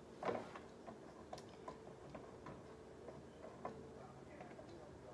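Faint, scattered light clicks and taps of someone moving about in a quiet room.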